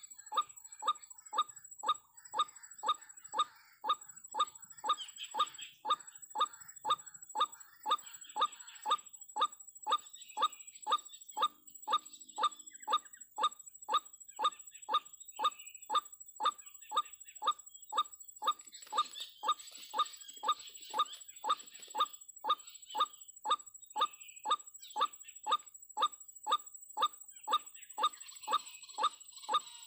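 White-breasted waterhen (ruak-ruak) calls: a short, falling 'kruak' note repeated very evenly about twice a second, with a steady high whine and fainter high chatter behind it.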